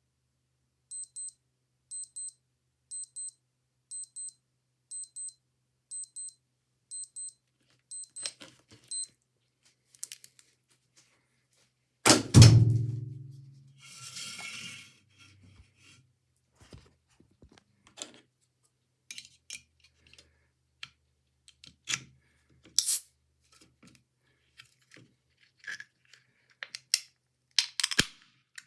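An old digital watch beeping in short high double beeps, one pair a second, about eight times. About twelve seconds in, a can of iced tea is cracked open with a Lego tool: a loud pop, then a short hiss, followed by scattered clicks and taps of handling.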